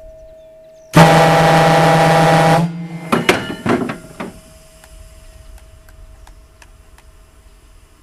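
A compressed-air ship's horn (typhon) gives one loud, steady blast of about a second and a half that cuts off sharply. It is followed by four or five short sputtering toots.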